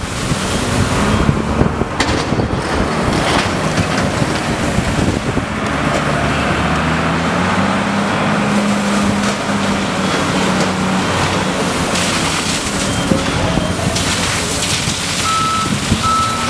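Water-cannon jet spraying hard onto the road with a steady rushing hiss. An armoured police vehicle's engine runs close by in the middle. A reversing beeper starts sounding near the end, in a regular on-off beep.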